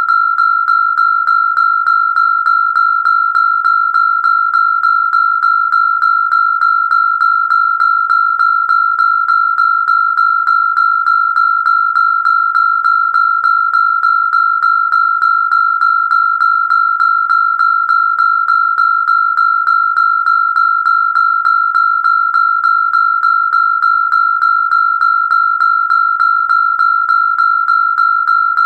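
Electronic siren sound effect holding one steady high tone, with no rise or fall in pitch, pulsing quickly and evenly in loudness.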